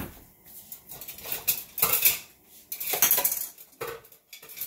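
Kitchen dishes and metal utensils clattering: a run of separate clinks and knocks at uneven intervals.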